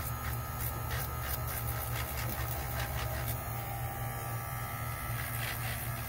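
Handheld electric nail file running with a steady hum, its sanding band working the surface of a plastic nail tip to rough it up and blend it into the natural nail.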